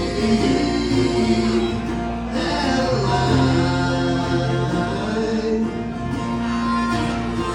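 Country band playing an instrumental passage between vocal lines, with guitar prominent.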